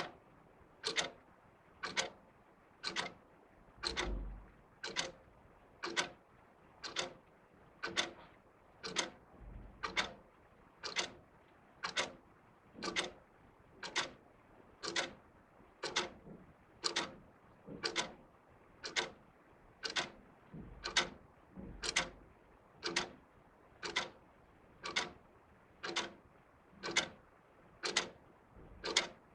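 Two wall clocks ticking steadily, about one sharp tick a second.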